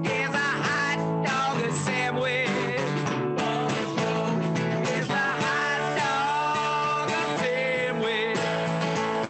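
A man sings a rock-style song over a strummed acoustic guitar, with a drum kit playing along. The sound has the narrow, compressed quality of a video-call stream, and cuts out for an instant at the very end.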